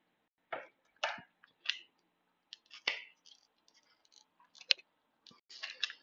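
Scattered clicks and scrapes of a plastic coin capsule and its presentation box being handled as a proof silver round is worked out of its case, with one sharper click about two-thirds of the way through.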